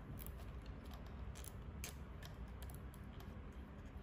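Faint, irregular small plastic clicks and ticks from hands handling servo wires and a plastic cable tie, over a steady low hum.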